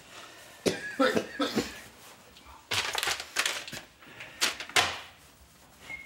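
People moving about in a small room: a brief, wordless vocal sound just after the start, a rustle of clothing or paper about three seconds in, then two sharp knocks close together near the end.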